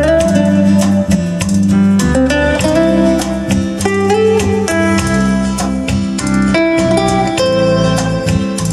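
Guitar music with plucked notes over a steady bass line, played back through the Luxman LX-360 tube integrated amplifier and its loudspeakers.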